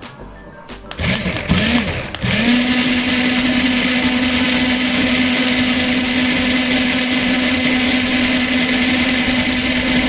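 Small DC gear motors of a toy car chassis spinning up about a second in, wavering in pitch at first, then running at a steady whine. The running motors show that the RFID lock has let the 'engine' start.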